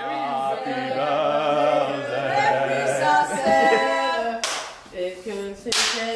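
Several voices singing long held notes together, unaccompanied, with two loud hand claps in the second half.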